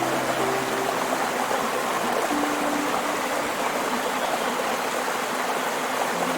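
Steady rush of flowing stream water, with a few soft, held music notes in the first couple of seconds that then fade, leaving the water alone.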